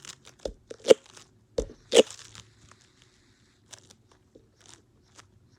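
A sticky, slime-like fidget toy being squeezed and pulled apart by hand, giving a string of crackling, crunching pops, the loudest about one and two seconds in, then fainter clicks.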